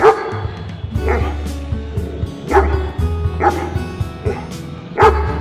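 A dog barking in short, sharp yips, about six of them, the loudest at the start and near the end, over background music.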